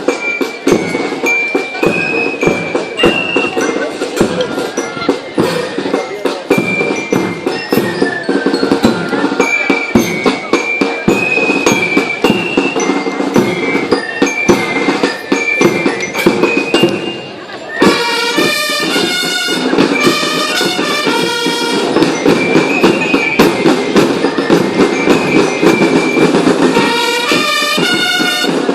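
Loud recorded music with dense percussion and a high stepping melody. A little past halfway it drops out for a moment, then comes back with a fuller section.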